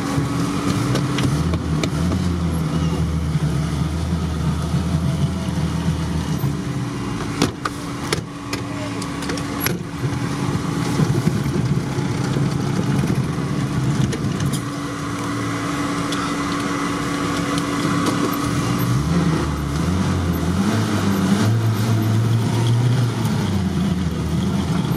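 UAZ-469 engine running under load, heard from inside the cab, its pitch rising and falling as the throttle is worked. A few sharp knocks come about a third of the way in.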